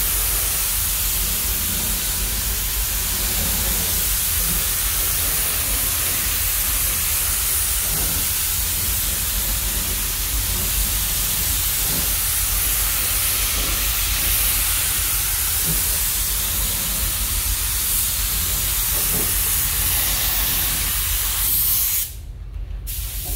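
Gravity-feed paint spray gun hissing steadily as it sprays red topcoat paint, over a steady low rumble. The hiss cuts out for under a second near the end.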